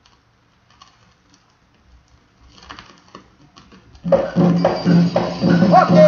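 Vinyl record played through a speaker: a near-silent gap between tracks with a few faint surface clicks. About four seconds in, the next track starts abruptly with percussion and singing.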